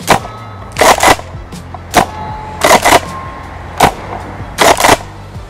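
Tokyo Marui KSG gas airsoft pump shotgun firing repeatedly: three sharp pops about two seconds apart, each followed by a quick double clack of the pump being racked.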